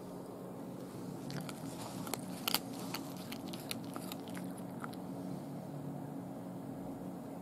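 A cat biting and chewing a raw day-old chick: a run of irregular wet crunches and crackles, loudest about two and a half seconds in, dying away after about five seconds.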